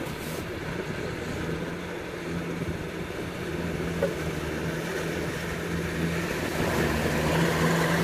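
Engine of an amphibious all-terrain vehicle running steadily, with a low, even hum that grows slightly louder toward the end.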